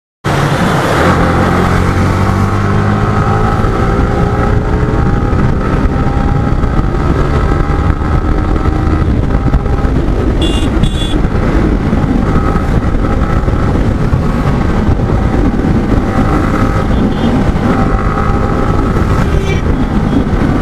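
Motorcycle engine running under way, its pitch rising and falling with the throttle.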